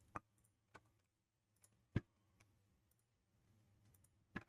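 Four sparse, sharp computer mouse clicks; the one about two seconds in is the loudest, and near silence lies between them.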